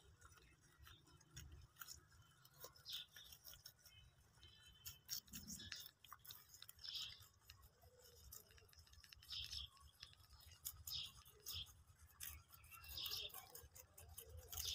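Rabbits chewing and tearing fresh-cut grass: faint, quick crunching clicks and short crackly flurries of rustling stems.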